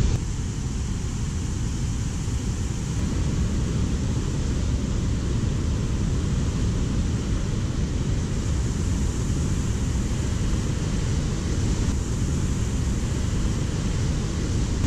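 A fast mountain river rushing over rocks, a steady, even rush of white water.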